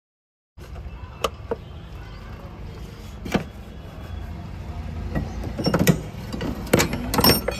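Workshop background hum with scattered sharp clicks and knocks from hand tools working in the engine bay of a Maruti WagonR. The clicks come more often in the second half. The work is the refitting of the cleaned spark plugs.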